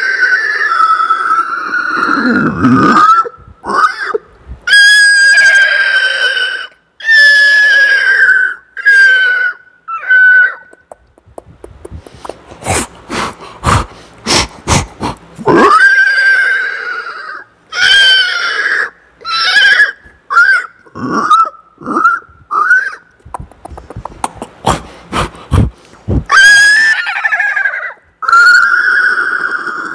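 A man imitating a horse with his voice: a string of whinnies and neighs that waver and slide in pitch. Twice, once in the middle and once later, they break into quick runs of clicks like hoofbeats.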